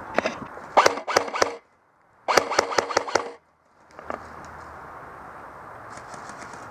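Airsoft gun firing two short bursts of rapid shots in quick succession, with the sound dropping out briefly after each burst.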